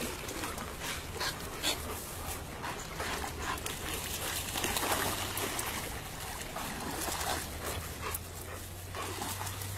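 German shepherds panting and splashing as they wade into a pond, with scattered short splashes and a low steady hum underneath.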